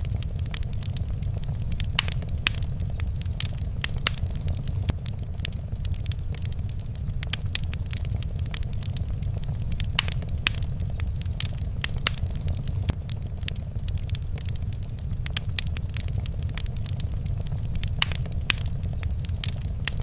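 Wood fire crackling in a fireplace: irregular sharp pops and snaps, several a second at times, over a steady low rumble.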